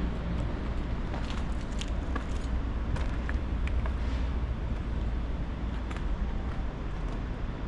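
Steady low background rumble with scattered light clicks and ticks.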